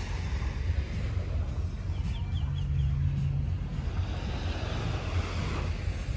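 Wind buffeting the microphone in a low, rumbling noise, over the faint wash of small waves.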